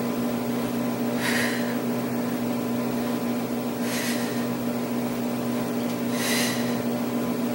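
A woman's breathing while she works through a plank exercise: three short, hissy breaths of effort, about a second, four seconds and six seconds in. A steady low hum runs underneath.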